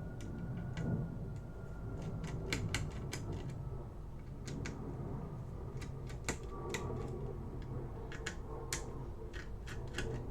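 Irregular small sharp clicks and taps of a screwdriver and small metal parts being handled as a laptop's heatsink screws are taken out, over a steady low hum.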